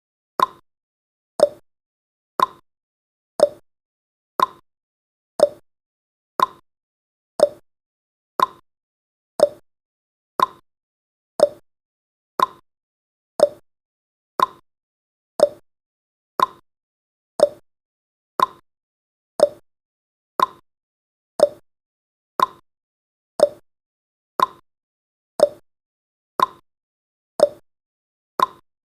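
Countdown timer's ticking sound effect: short, sharp ticks once a second, alternating a higher and a lower tick like a clock's tick-tock.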